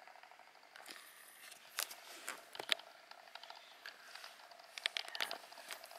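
Rustling and crackling of leaves and plant litter close to the microphone, with scattered sharp clicks.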